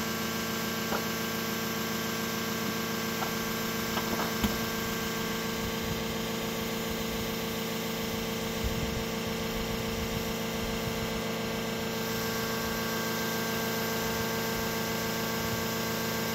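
A steady machine hum with several fixed tones that holds at one level throughout, with a few faint knocks around four seconds in.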